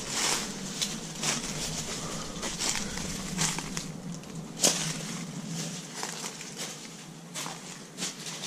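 Footsteps crunching over loose debris, an uneven series of crackling steps.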